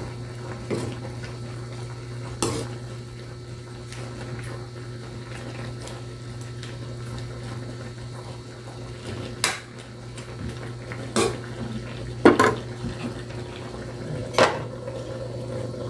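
Metal spatula stirring a simmering chicken-and-vegetable stew in an aluminium pan, with scattered sharp clinks against the pan's rim. Near the end a lid is set on the pan with a clink. A steady low hum runs underneath.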